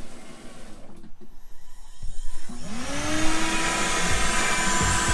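Onefinity CNC router running: fairly quiet at first, then about two and a half seconds in a motor spins up with a rising whine that levels off into a loud, steady whir.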